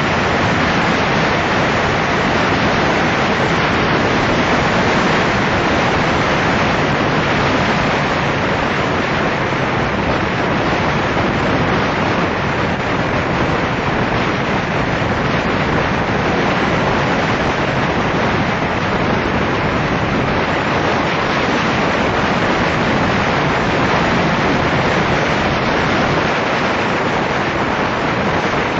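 Steady rush of wind on the microphone of a camera on a moving motorcycle at road speed. It is an even noise with no clear engine note standing out.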